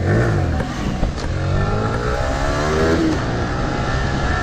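Yamaha Vixion R's 155 cc single-cylinder engine pulling away and accelerating, its pitch rising for about a second and a half before levelling off, just after a tune-up with fresh Ipone 10W-40 oil.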